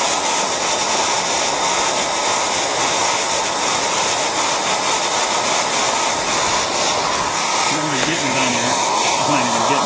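Handheld hair dryer blowing steadily on high, used to heat and soften the contact cement holding an iPhone 3G's glass to its plastic frame. Faint voices come under the noise near the end.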